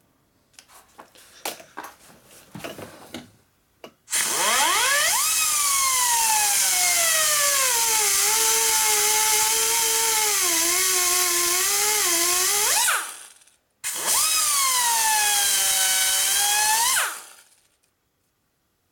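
Die grinder with a burr grinding down the head of a Lock-N-Stitch repair screw in a cracked cast-iron Ford Model A engine block. A few light clicks and taps come first. Then the grinder runs in two bursts, one of about nine seconds and one of about three, each a loud whine that jumps up as it starts and sags in pitch as the burr bites into the metal.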